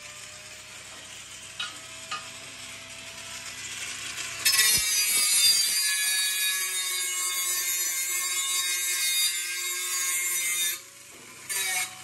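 Angle grinder with an abrasive disc grinding the cracked lip of an aluminium alloy sport rim, cleaning the metal before it is welded. It is low at first; about four seconds in the disc bites and grinds loudly and steadily for about six seconds, then eases off, with a few short touches near the end.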